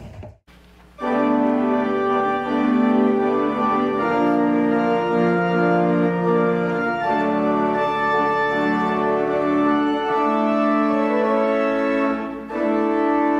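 Organ playing slow, sustained chords over a held bass note. It begins about a second in and pauses briefly near the end before going on.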